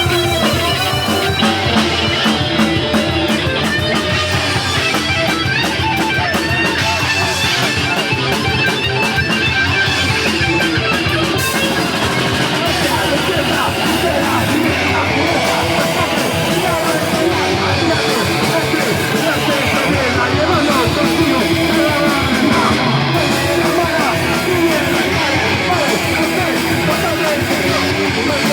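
Heavy metal band playing loud, steady rock with electric guitars, bass and drums.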